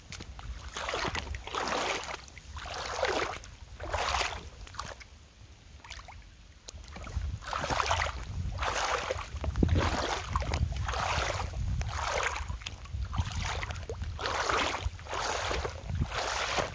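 Sergio Rossi leather high-heeled boots wading through a shallow muddy puddle, each step a splash and slosh of water, about one a second, with a brief lull about a third of the way in.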